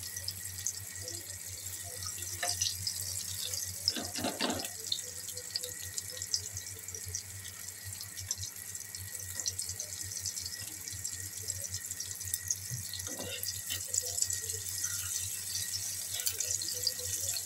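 Shami kababs shallow-frying in hot oil in a pan: a steady sizzle full of tiny crackles. A metal spatula knocks and scrapes against the pan a few times as the kababs are turned, loudest about four seconds in.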